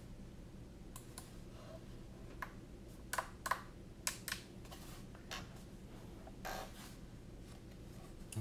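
Scattered light clicks and taps of a hard plastic object being handled and turned over in the hands, about ten irregular ones, over a steady low hum.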